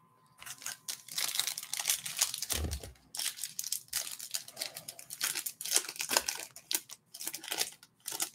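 The wrapper of a 2023 Panini Select UFC trading card pack being torn open and crinkled by hand: a run of irregular tearing and crinkling noises.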